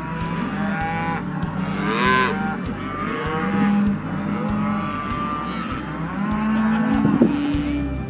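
A pen of calves bawling: many overlapping moos, some low and some higher-pitched, rising and falling.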